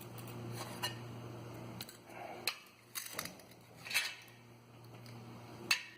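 Scattered light metallic clinks and taps, about six over a few seconds, as metal pieces are handled, over a faint steady hum.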